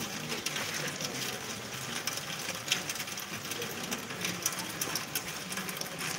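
Crowd standing and moving about: shuffling footsteps and clothing rustle, with irregular small clicks and a low background murmur.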